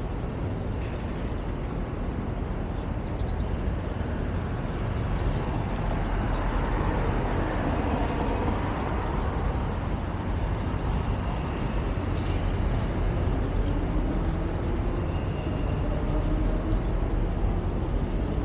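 Road traffic noise: a steady low rumble of vehicles. In the middle a passing vehicle's engine rises and falls in pitch, a short high squeal comes about twelve seconds in, and an engine climbs slowly in pitch near the end.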